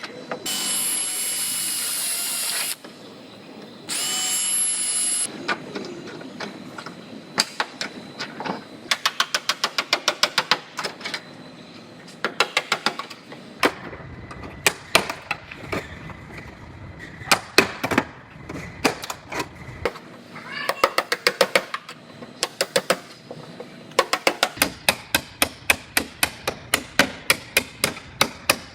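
Power tools cutting the quarter panel off a car body. Near the start are two short bursts of a high-pitched whining cutting tool. After that come repeated runs of rapid, evenly spaced sharp clicks and taps, each lasting a second or two.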